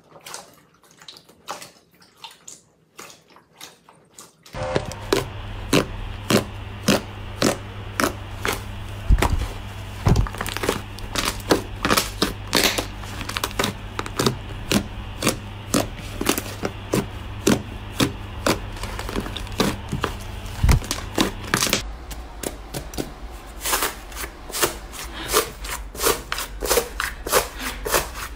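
Hands squeezing and poking slime, making a run of sticky squelches, small pops and crackles, a few every second. The sounds are faint at first and get louder about four seconds in, over a steady low hum.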